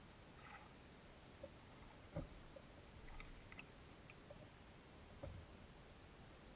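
Near silence underwater, broken by faint scattered clicks and ticks, with two slightly stronger soft knocks about two seconds in and about five seconds in.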